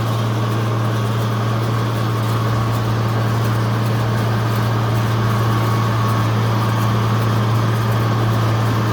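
Tractor engine running at a steady speed while pulling a hay baler, a constant low drone.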